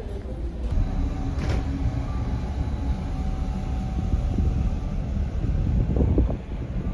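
Steady low rumble of a large car ferry under way, with a faint steady hum above it. There is a single sharp knock about a second and a half in, and some crackling near the end.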